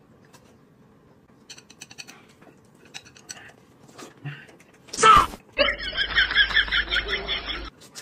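Quiet eating sounds, small clicks of chopsticks and chewing, then about five seconds in a sudden loud whoosh and a two-second edited-in comic sound effect with a quick, evenly repeating pulse, about six a second, that starts and stops abruptly.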